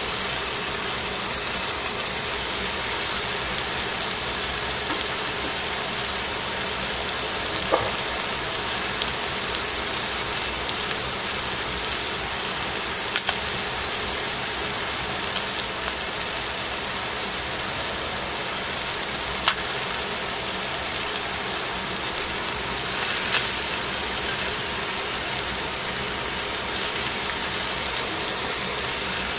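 Cabbage, carrot and green onion sizzling steadily in a hot stainless pan as they are stir-fried with tongs, with a few sharp clicks of the tongs against the pan.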